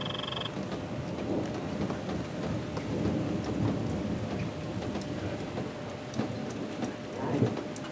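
Thunder rolling and rumbling through a thunderstorm, swelling in the middle, with a louder thump of thunder near the end, over rain falling and pattering.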